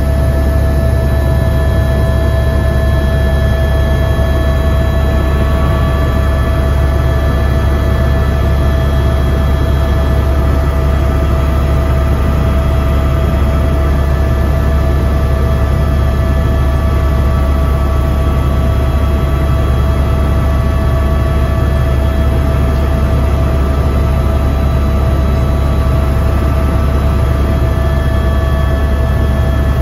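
Helicopter in steady flight heard from inside the cabin: a constant loud low rotor-and-engine drone with several steady high whining tones on top.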